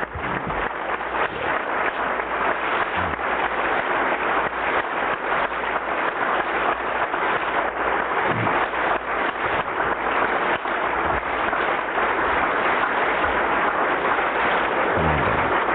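A large audience applauding, a dense, steady clapping that grows a little louder toward the end.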